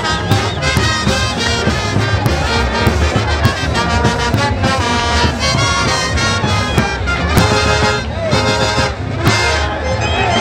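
Lively brass band music, horns playing over a steady drum beat of about two strokes a second.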